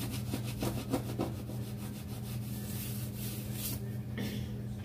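Steady low hum with scattered rubbing and scraping sounds: several in the first second or so and a few more about three to four seconds in.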